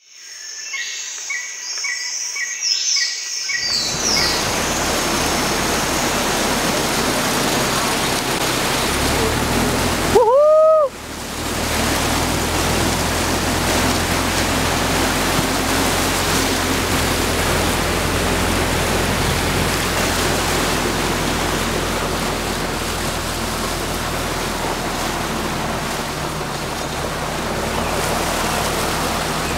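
Birds chirping for the first few seconds; then a swamp buggy driving through flooded marsh, its engine running steadily under the rush and splash of churned water. About ten seconds in, a short loud tone rises and falls in pitch, followed by a brief dip in the noise.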